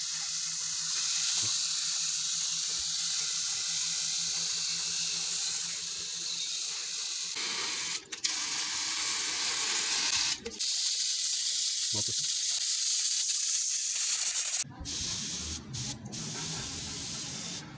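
Homemade pressure spray bottle, a plastic bottle with a spray nozzle, hissing steadily as it sprays a fine mist, with two brief breaks and stopping about three quarters of the way through.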